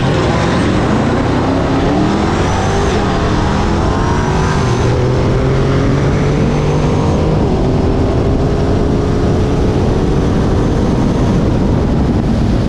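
Boosted Chrysler 300 engine at full throttle in a drag race, climbing in pitch through the gears with upshifts about 3 and 7 seconds in, under heavy wind rush.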